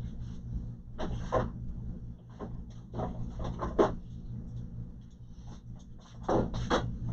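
Hands working parts inside an opened all-in-one computer: a run of clicks, rubs and scrapes in short clusters, over a steady low hum.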